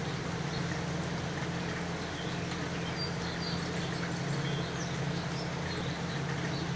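Steady hiss of rain and running runoff water, over a low steady hum, with a few faint bird chirps.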